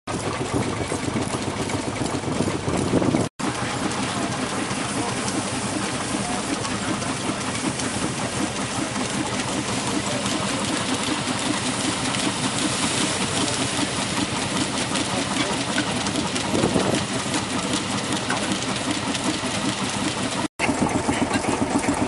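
Foster threshing machine running, belt-driven by a steam traction engine: a continuous mechanical hum and clatter with a fine rapid rhythm. The sound cuts out for an instant about three seconds in and again near the end.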